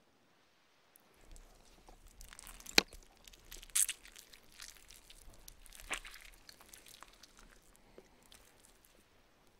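Close-up eating sounds: biting and chewing a soft, sticky piece of food, with wet crackles and mouth clicks. There are sharp louder clicks about three and four seconds in and again near six seconds, and the chewing thins out near the end.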